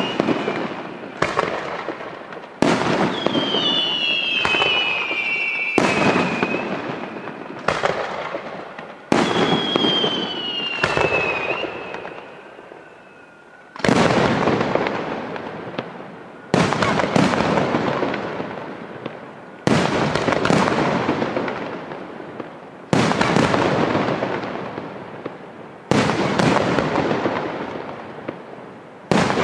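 Aerial firework shells from a Gioiese Fireworks display bursting one after another, about one every one to three seconds, each bang fading away over a second or two. In the first half, high whistles fall in pitch three times among the bursts, and there is a short lull just before the middle.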